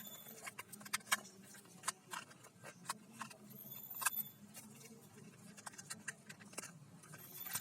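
Light, irregular clicks and rattles of small plastic toys being handled.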